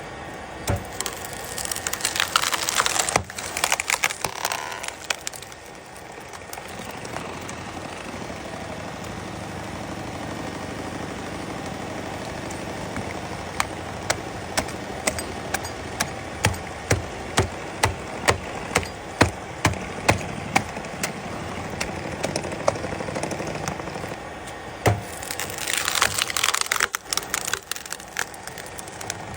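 Woodworking sounds on wood: rough scraping or cutting bursts near the start and again near the end, a steady machine hum in between, and a run of sharp knocks about once a second in the middle.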